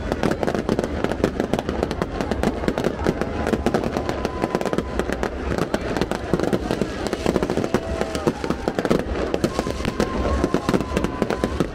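New Year's fireworks going off in a dense, unbroken barrage of rapid overlapping bangs and crackles.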